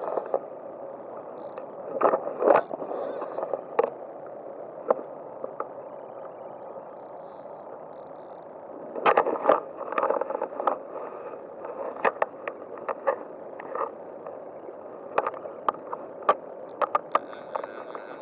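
Steady rushing of a river's flowing water, with scattered sharp clicks and knocks at irregular intervals, bunched around two seconds in, around nine to eleven seconds, and again from about twelve to seventeen seconds.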